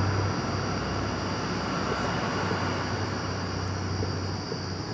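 Steady background hum and hiss, with a low hum that drops out briefly near the start.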